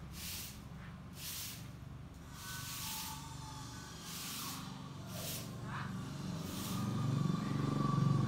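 Grass broom sweeping over a tiled courtyard: short swishing strokes, about one a second, thinning toward the end. A low hum underneath grows louder near the end.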